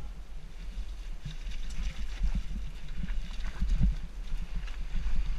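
Mountain bike clattering and knocking over rough dirt singletrack on a fast descent, with irregular sharp knocks from the frame and chain, and a steady low rumble of wind on the microphone.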